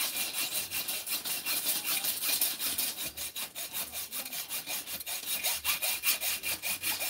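Hand saw cutting with quick, steady back-and-forth strokes.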